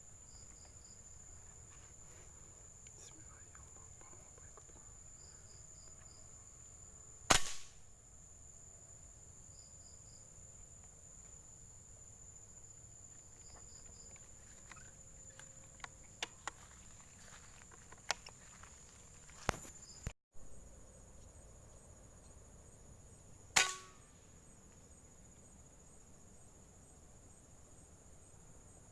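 Two sharp gunshots fired at birds, about sixteen seconds apart, with a few faint clicks between them. A steady high-pitched insect drone runs underneath.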